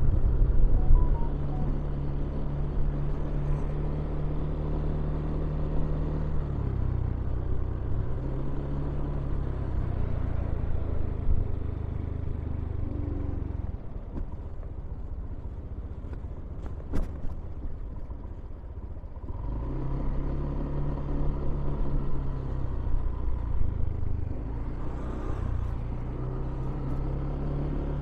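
Motor vehicle engine hum from street traffic, low and steady, shifting in pitch several times. It fades for a few seconds in the middle, where there is a single sharp click, and then an engine hum returns.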